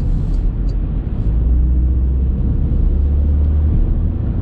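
Low drone of a 2019 Porsche Macan with the 2.0-litre turbo four-cylinder, heard from inside the cabin while cruising: steady engine and road rumble. A deeper hum strengthens from about a second and a half in and eases off near the end.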